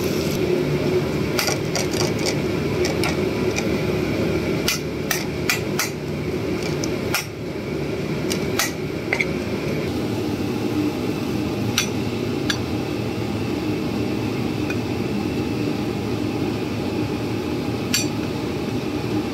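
Chicken pieces sizzling in oil in a pan while a steel spoon presses and breaks them apart, with sharp knocks and clinks of the spoon against the pan, thick in the first several seconds and more scattered after.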